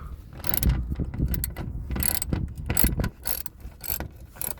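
Socket ratchet clicking in short repeated bursts as 10 mm bolts are loosened from a plastic engine undercover.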